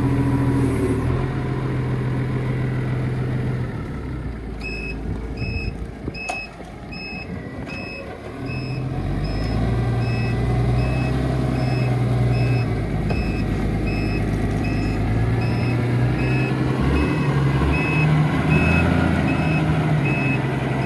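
A vehicle's reversing alarm beeping at an even pace, about three beeps every two seconds, starting about five seconds in, over a running engine whose pitch rises and falls as it manoeuvres.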